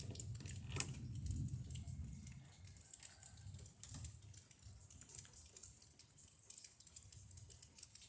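Scattered raindrops dripping and pattering in sharp ticks, over a low rumble that swells and fades in the first two seconds.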